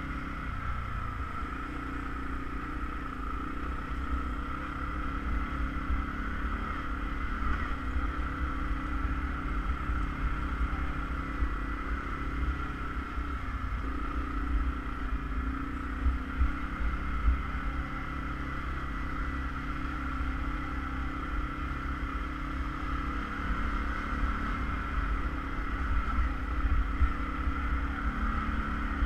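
ATV engine and drivetrain running steadily while driving: a low rumble with a steady high whine over it, the engine note dropping about a second in.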